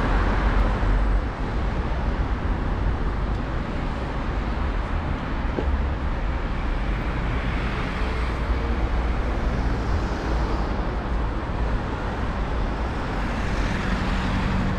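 Steady city street traffic noise, an even wash of passing vehicles with a heavy low rumble underneath.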